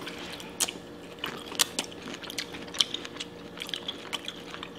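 Close-up mouth sounds of chewing shrimp coated in seafood boil sauce: irregular sharp smacks and clicks of lips and teeth, several times a second at uneven spacing.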